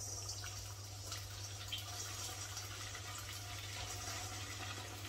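Stuffed bread rolls (bondas) frying in hot oil in a kadhai: a steady sizzle with faint crackles, over a low steady hum.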